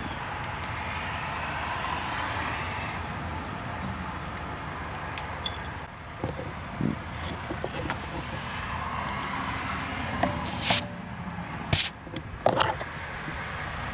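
Steady vehicle rumble, with a few short sharp hisses or clicks about ten to twelve seconds in.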